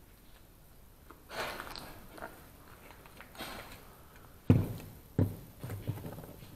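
Scuffs and knocks: two short rustling scrapes in the first half, then two sharp thumps about halfway through, followed by a few lighter knocks.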